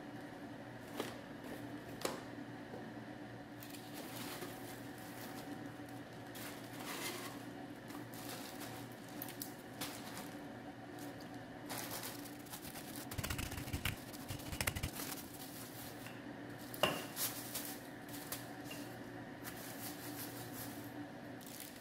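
Dishes and utensils clinking and knocking now and then in a kitchen over a steady hum, with a run of duller knocks about two thirds of the way through and one sharper clink soon after.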